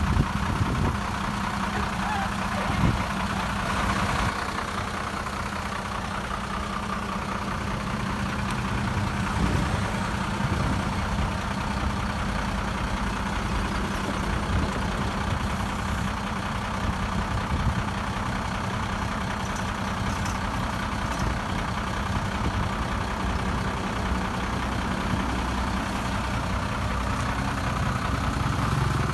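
Diesel engine of heavy earthmoving machinery running steadily at an even pace, with a few brief knocks in the first few seconds.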